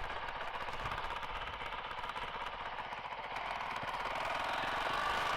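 Honda CRF450RL's single-cylinder four-stroke engine running at low speed while riding, a rapid, even pulsing that gets somewhat louder in the second half.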